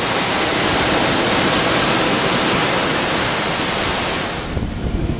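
Steady rushing noise of sea and wind, even across all pitches. About four and a half seconds in it drops to a lower, gusty rumble of wind buffeting the microphone.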